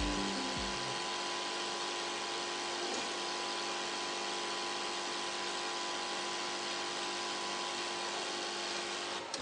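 Duplo print-finishing machine (sheet feeder and cutter/creaser) running: a steady mechanical whirr with several constant tones from its motors.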